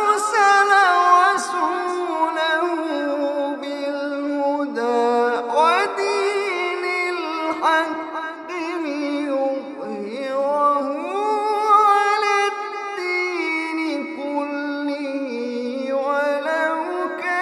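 A man reciting the Quran in a melodic, ornamented chant (tajweed), holding long notes that glide up and down in pitch from phrase to phrase.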